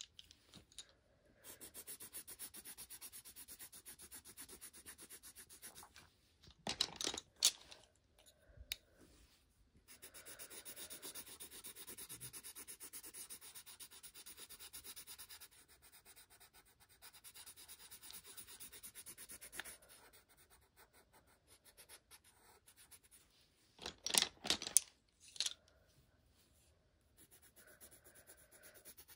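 Coloured pencil shading on paper: quiet, fast back-and-forth rubbing strokes in long runs with short pauses. A few brief louder knocks and rattles come about a quarter of the way in and again near the end.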